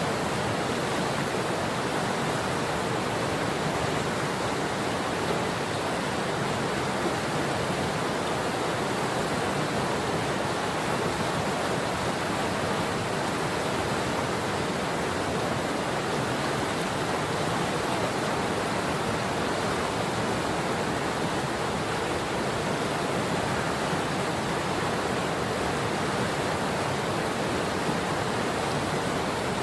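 Patapsco River water running steadily, an even rushing noise with no breaks or changes.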